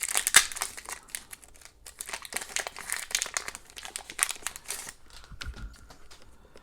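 Foil trading-card pack wrapper crinkling and tearing as it is opened, with irregular crackles that thin out near the end.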